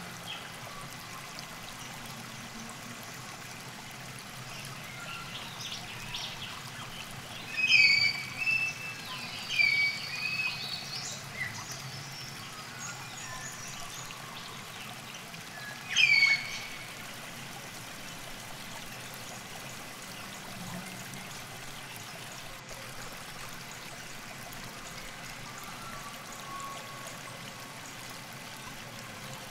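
Riverbank ambience: a steady soft trickle of water, with short bird calls in a cluster from about eight to eleven seconds in and once more about sixteen seconds in.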